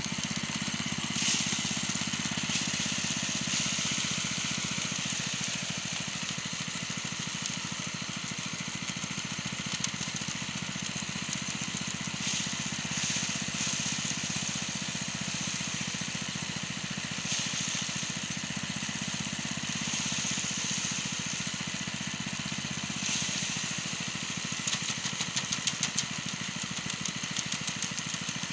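Small engine running steadily at an even speed, with a higher hiss that swells and fades every few seconds and a quick run of ticks near the end.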